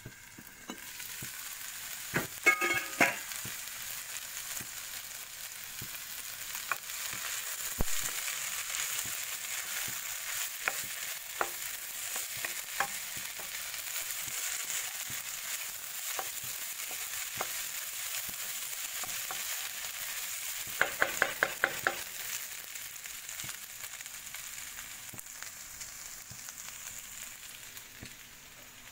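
Green beans with coconut masala sizzling in a frying pan while being stirred with a wooden spatula. Metallic clanks about two seconds in, and a quick run of about six taps near 21 seconds; the sizzle thins out toward the end.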